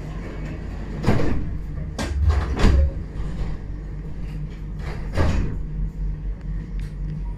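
Tram interior: a steady low hum from the tram, broken by several loud clunks and rushes of noise about one, two and five seconds in, typical of the sliding doors working at a stop. Near the end a low, even pulsing sets in as the tram starts moving.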